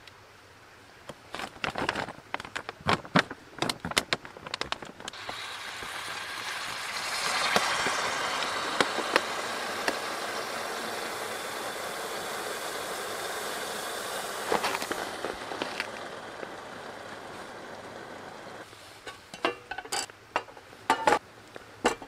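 Plastic cooking pouch rustling and clicking as it is sealed, then a steady fizzing hiss that builds about five seconds in and dies away after about ten seconds: the water-activated heater pad of a flameless cooking bag reacting and steaming. Sharp plastic crinkles and clicks near the end.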